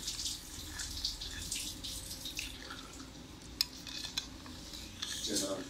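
Metal spoon stirring thin sauce in a ceramic bowl: the liquid swishes and the spoon scrapes, with two sharp clinks of spoon against the bowl a little past halfway.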